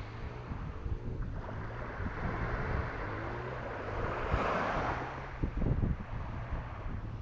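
Sea waves washing, with a swell of surging water about four seconds in, over a low steady hum, and wind buffeting the microphone.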